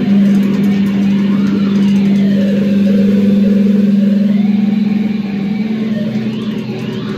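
Loud improvised noise-rock jam with amplified electric guitar: a steady low electric drone held throughout, with warbling tones sweeping up and down in pitch above it.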